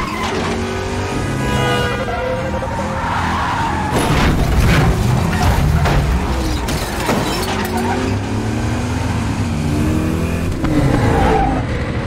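Chase sound of a Chevrolet Chevelle SS V8 muscle car revving up and down hard, with repeated tire squeals as it skids through turns. It is loudest around four to five seconds in and again near the end.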